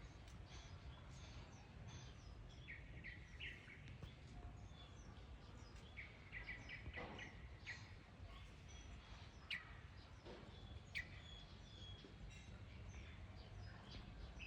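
Faint chirps and short calls of small birds, scattered through and clustered in quick runs, over a low steady background rumble. Two sharp, louder chirps stand out past the middle.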